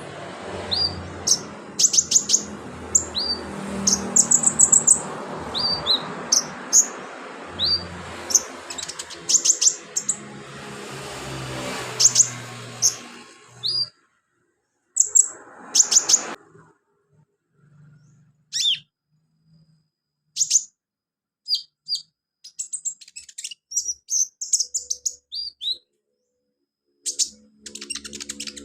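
Sunbird (kolibri/conin) singing in repeated bursts of short, high, sharp chirps and quick trills, some notes sliding down in pitch. A background hiss runs under the song and cuts out about halfway through.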